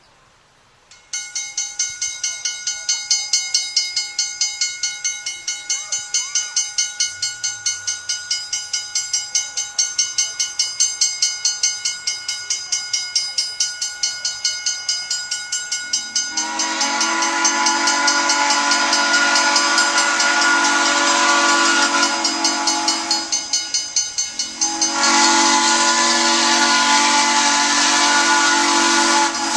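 Iowa Interstate steam locomotive passing, its exhaust chuffing in a steady rhythm of about two to three beats a second. About halfway through its steam whistle blows a long, loud chord, stops briefly, then sounds again to the end.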